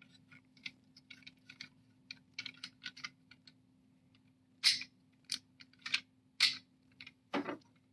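Lego bricks of a hand-held prototype expansion joint clicking and rattling lightly as its sliding sections are worked in and out: many small irregular clicks, with a few louder ones in the second half.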